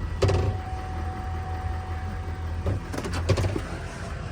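Farm machine's engine running at a low steady rumble, with a steady high whine that holds for about two and a half seconds and a few clunks, one near the start and several about three seconds in.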